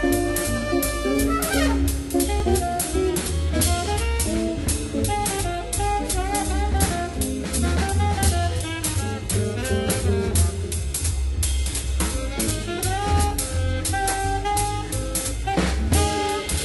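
Background music with a steady drum beat and a melodic lead line over it.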